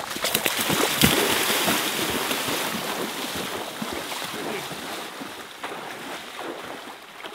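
Rushing river water, loud and steady, with a knock about a second in, after which the rush slowly fades.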